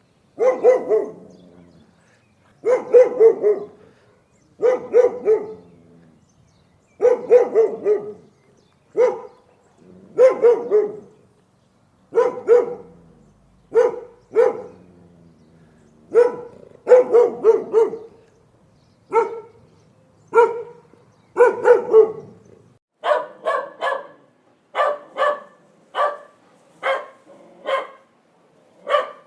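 A dog barking repeatedly in quick bursts of two to four barks, a burst every couple of seconds. From about two-thirds of the way through, the barks sound thinner, with less low end.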